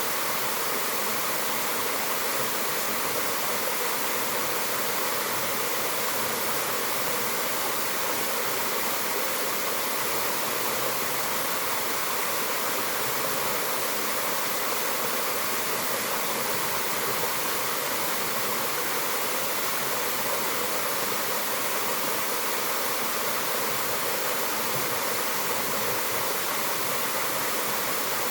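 A mountain waterfall: falling water rushing steadily, with no breaks or separate sounds.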